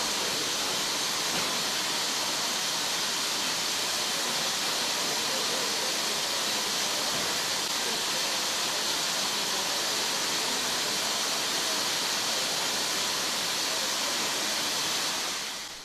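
A steam locomotive venting steam in a steady, loud hiss that fades out near the end.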